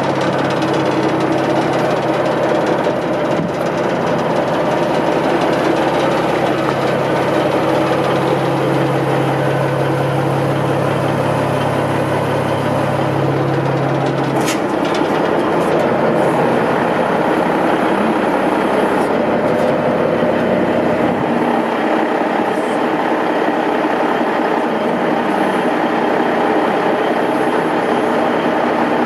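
Heavy-truck diesel engine of a 1988 Peterbilt 357 idling steadily, heard from beside the chassis. A low hum in it drops away about halfway through.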